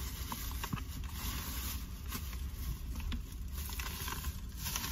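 Thin plastic shopping bag rustling and crinkling as it is handled, with scattered small crackles over a low steady rumble.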